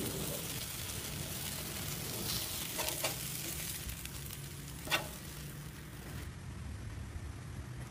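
Shredded cheese sizzling on a hot flat-top griddle under a baguette, with sharp clicks about three seconds in and again near five seconds as a metal spatula scrapes and taps the griddle surface.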